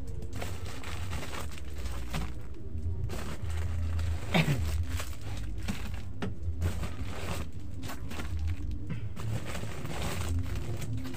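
Plastic packs of granulated sugar rustling and crinkling as they are handled and stacked on a shelf, over a steady low hum. A short, sharp sound that drops in pitch stands out about four seconds in.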